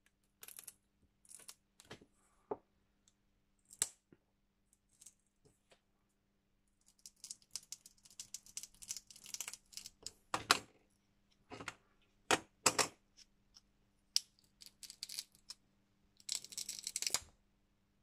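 Thin polycarbonate cover of a wireless charger being pried and peeled off its glued backing: scattered clicks and scraping, with sharp cracks of the plastic giving way about ten and twelve and a half seconds in, and a longer tearing scrape near the end.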